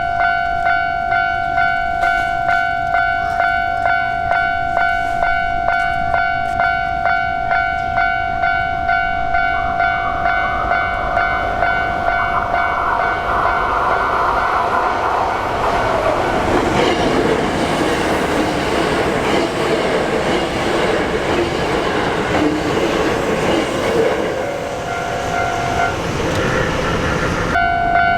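Japanese level-crossing warning bell ringing in rapid, even dings, about two a second, while a Hankyu Kyoto Line electric train passes over the crossing. The train's wheel-on-rail running noise swells about ten seconds in, drowns the bell for several seconds and eases near the end, leaving the bell ringing on.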